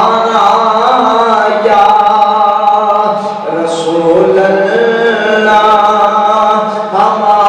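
A voice chanting in long, drawn-out melodic phrases.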